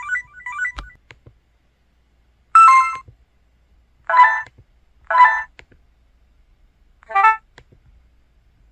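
System tones from an EV-W530 Ever feature phone (Qualcomm CMX synth chip): a quick run of small beeps in the first second, then four short electronic chimes of several notes each, one to two seconds apart.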